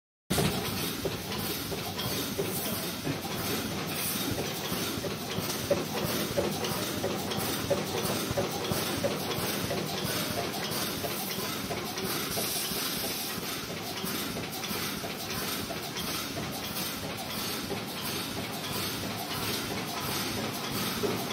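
Wire mesh welding machine running in production: a steady, dense rattle of rapid clicks over a hiss from its welding heads and wire feed. The sound cuts in abruptly just after the start.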